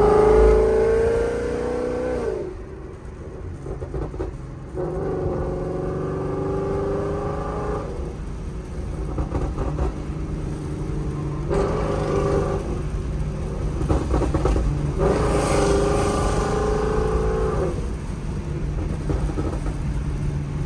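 Ford Mustang GT's 5.0 V8 through a Corsa Extreme exhaust, heard from inside the cabin with the windows down. The engine pulls four times: the revs climb in the first, which ends about two seconds in, then again around five, twelve and fifteen seconds in. A lower steady exhaust rumble carries on between the pulls.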